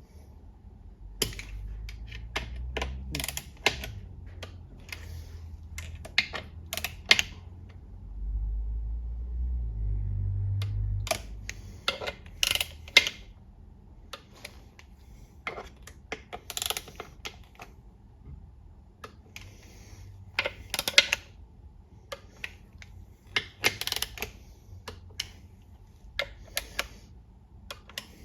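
Torque wrench clicking in short bursts every few seconds as the transmission oil pan bolts are tightened to 7.5 ft-lb. A low rumble comes in twice, about two seconds in and again about eight seconds in.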